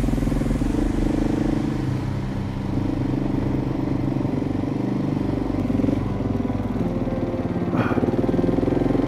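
Dirt bike engine running while riding a gravel track, its pitch stepping up and down a few times with throttle and gears. A short knock about eight seconds in.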